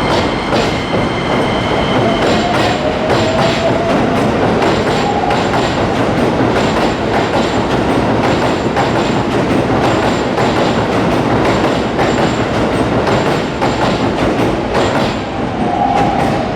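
Keikyu Line electric train moving along the platform, its wheels clattering steadily over rail joints and points, with faint gliding squeals or whines a few seconds in and again near the end.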